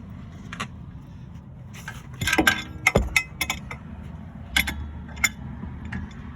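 Metal clinks and clanks of a socket and mini breaker bar being fitted and repositioned on a rear hub-bearing bolt, in a cluster about two seconds in with one heavier knock, then two more single clanks later.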